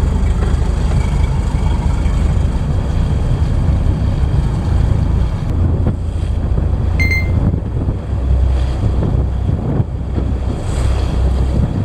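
Small boat under way: a steady engine rumble, with wind buffeting the microphone and the rush of water along the hull. A brief high tone sounds about seven seconds in.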